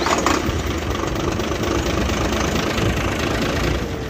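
Nissan FE6 six-cylinder truck diesel engine running at idle just after being started. The engine has heavy crankcase blow-by ("back compression"), which the mechanic traces to a faulty number-one piston.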